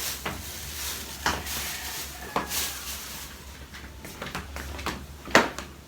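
A few scattered light knocks and bumps, like things being handled or set down, the loudest about five seconds in, over a steady low hum.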